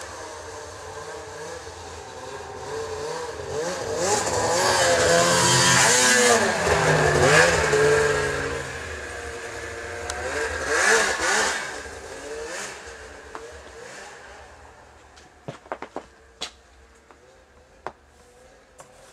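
2001 Arctic Cat ZR 800 snowmobile's two-stroke engine revving as it rides past, its pitch wavering up and down. It is loudest about four to eight seconds in, surges again around eleven seconds, then fades away into the distance. A few sharp clicks come near the end.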